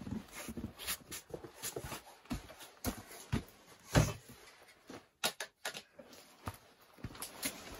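Footsteps and scattered knocks from camp gear being handled inside a canvas tent: a bag and plastic storage box moved on a table and a long-handled tool leaned against it. The loudest knock comes about four seconds in, followed by a few sharp clicks.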